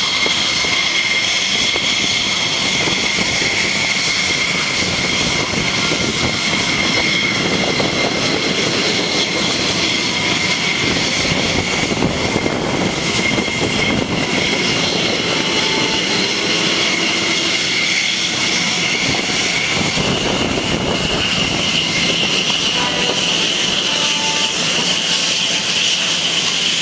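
F-16C Fighting Falcon jet engines running on the ground at taxi power: a steady noise carrying a high, steady whine.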